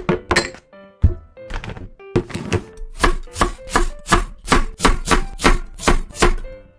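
Crisp food crunching in a steady rhythm of about three crunches a second, after a few irregular crunches at the start.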